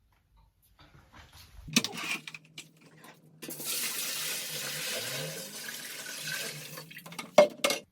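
Water running from a tap into a homebrew kettle for about three and a half seconds, filling it to leak-test a newly fitted heating element. A few metallic clanks come shortly before the water starts and two more come near the end.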